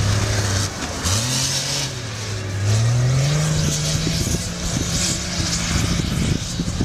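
Toyota Land Cruiser 80's engine working hard as the 4x4 ploughs through deep snow. The engine pitch dips briefly under a second in, rises, then climbs again about three seconds in and holds higher as it pulls up a slope, with a steady rushing noise over it.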